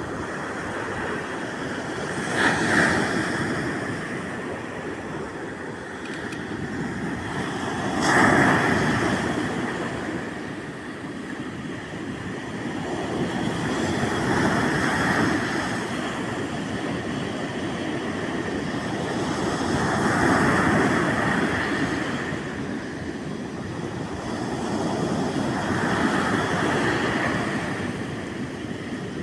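Sea waves breaking on the shore, the surf swelling and falling back about every six seconds, with a sharper crash about eight seconds in.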